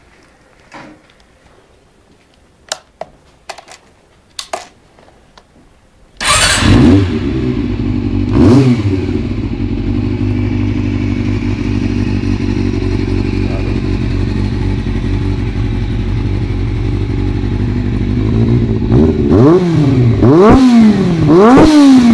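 Honda CB400 Super Four inline-four motorcycle engine: a few clicks, then it starts about six seconds in with a quick blip of the throttle, settles into a steady idle, and near the end is revved repeatedly, each rev rising and falling about once a second.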